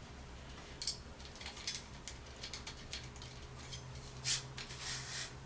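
Aluminium light stand's telescoping pole sections being slid down and their twist locks turned: a run of small metallic clicks and scrapes, with a louder knock about four seconds in.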